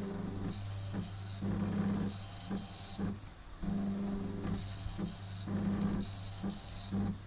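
Salvaged stepper motors of a homemade Arduino CNC plotter stepping the pen carriage back and forth. A low buzzing hum comes in short runs that start and stop every second or so, with clicks between the moves.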